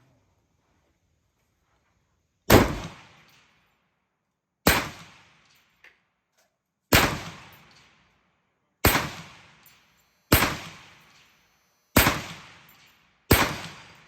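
Seven shots from an M1 Garand rifle, a .30-06 semi-automatic, fired one every one and a half to two seconds, each with a short tail that dies away.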